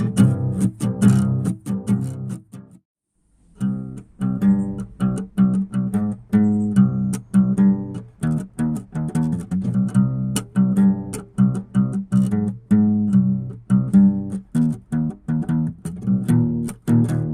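Instrumental background music led by a plucked string instrument playing quick, evenly struck notes, with a short break of silence about three seconds in.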